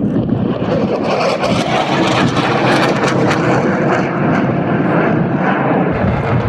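Dassault Rafale C fighter jet passing, its two Snecma M88 turbofans giving a loud, steady jet noise with some crackle in the middle.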